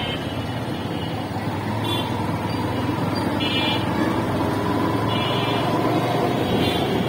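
Motorcycle engine running while riding along a busy street, with steady traffic noise around it. A short high beep repeats about every second and a half.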